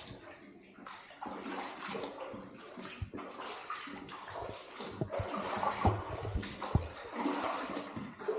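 Slow wading through deep standing water, sloshing and splashing with each step.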